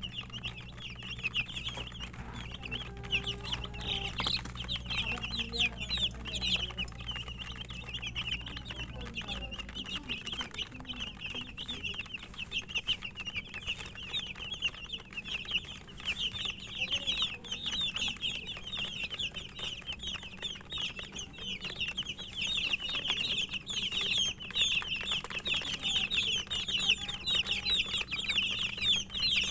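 A group of domestic chicken chicks peeping continuously, many short high chirps overlapping. A steady low hum underneath stops about nine seconds in.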